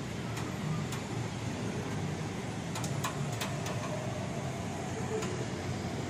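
Daikin inverter air conditioner outdoor unit running steadily, its compressor and condenser fan giving a steady hum and rush, with a few faint clicks. The system is running under charge while its R32 refrigerant is being topped up.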